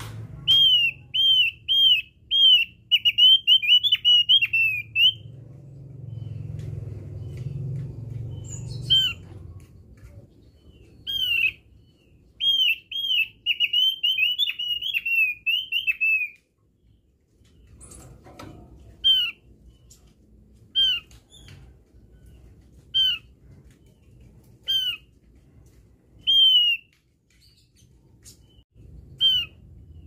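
Javan grey-throated white-eye (opior jawa) calling: two fast runs of short, sharply slurred whistled notes, then single notes about every two seconds.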